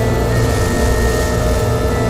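Drone-and-noise improvisation on DIY electronic oscillators and effects: several steady held tones layered over a low hum and a hiss. A brighter noise wash rises in the highs about half a second in.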